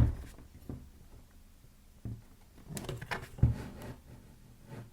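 Scattered knocks and clicks of hands adjusting metal parts of a bench pillar drill: a sharp knock at the start, a few light taps, and another firm knock about three and a half seconds in.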